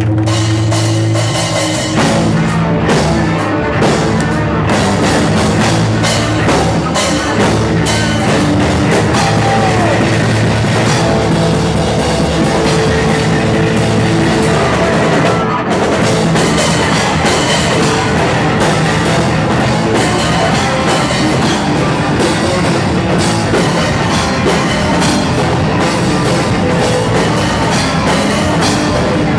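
Hardcore punk band playing live and loud: electric guitars, bass and drum kit driving a fast, steady beat.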